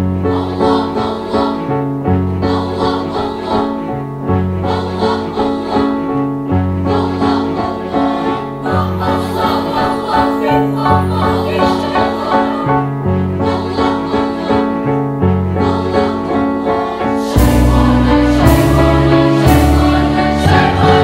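Girls' choir singing in harmony over a keyboard accompaniment with a bass line that moves in steady steps about every two seconds. About 17 seconds in the music swells louder, with sharp accented hits roughly once a second.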